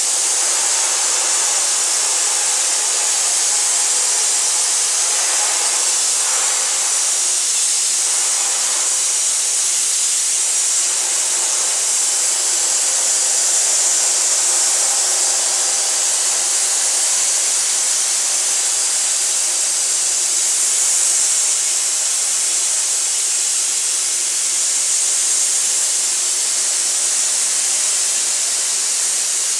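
Aerogommage (low-pressure air-abrasive blasting) nozzle giving a steady, high-pitched hiss as its jet strips the finish from a wooden chair back.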